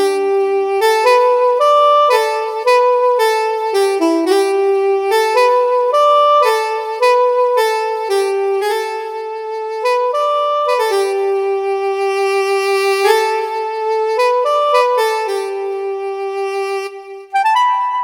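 A Yamaha PSR-SX900 keyboard playing a single-line melody on its saxophone voice, one sustained note after another. About a second before the end it switches to a different, lighter instrument voice.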